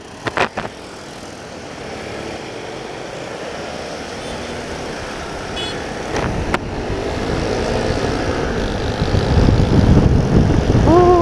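Motorcycle running under way, its engine and the wind on the mic growing steadily louder, with a couple of sharp knocks about half a second in.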